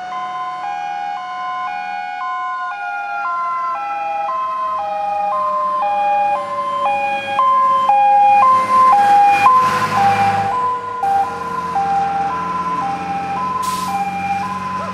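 Fire engine's two-tone siren alternating between a high and a low note, with a second, lower tone falling slowly in pitch. The engine and tyre noise swell as the truck passes, loudest about nine to ten seconds in.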